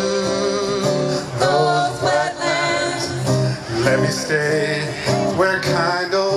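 A man singing a song to acoustic guitar.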